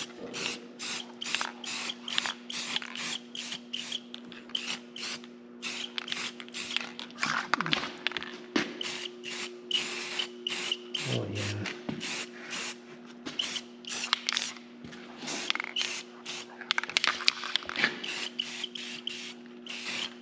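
Rust-Oleum aerosol spray-paint can spraying in many short hissing bursts, one after another, as paint is dusted onto a metal bracket.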